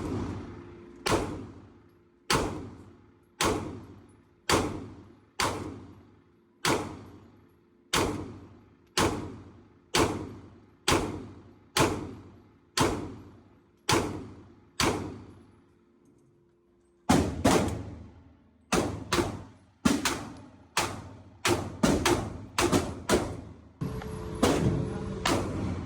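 Gunfire at an indoor shooting range: about a dozen shots spaced roughly a second apart, each followed by a short echoing decay. After a brief pause about two-thirds of the way in comes a faster string of shots.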